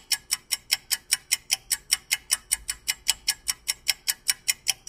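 A rapid, even ticking: sharp ticks at about five a second, all alike.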